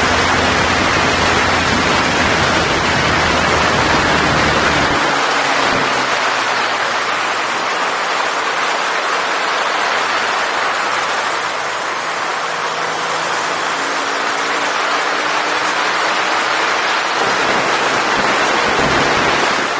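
Wind and road noise rushing past a BMW adventure motorcycle riding along at speed, with its engine running underneath. A heavy low wind rumble drops away about five seconds in, leaving the engine's steady note easier to hear.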